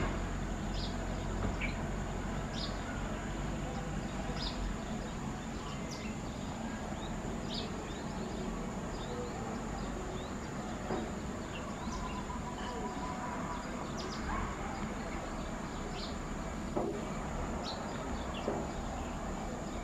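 Tractor engine running steadily, with short bird chirps every second or two and a constant high-pitched insect drone.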